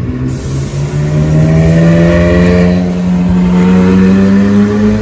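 McLaren supercar's twin-turbo V8 accelerating hard as it pulls away, the engine note climbing steadily in one long pull and getting louder about a second in.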